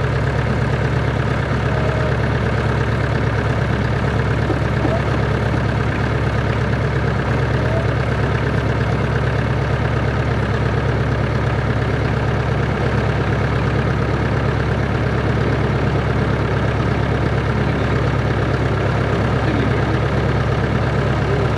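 A Cessna 140's four-cylinder, horizontally opposed engine and propeller running at a steady speed, a constant loud drone with no change in pitch.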